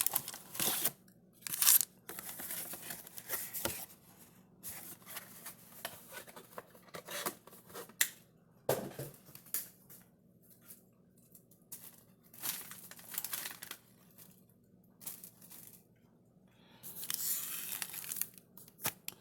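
Packaging being torn open and handled: the cardboard mega box of trading-card packs is opened and its foil packs pulled out, a series of short tearing and crinkling rustles.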